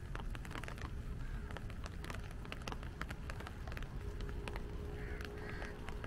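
Rain pattering with many sharp drop ticks, as on an umbrella, over a steady low rumble, with crows cawing a few times near the end.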